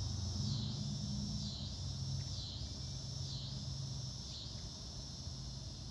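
Insects calling steadily outdoors, a high buzzing drone that dips and recovers in pitch about once a second, over a low steady hum.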